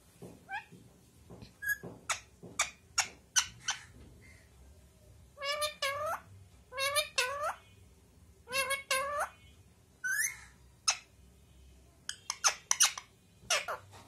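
Rose-ringed parakeet (Indian ringneck) vocalising: a run of short sharp clicks, then several squeaky calls that rise in pitch, often in pairs, and a few more clicks near the end.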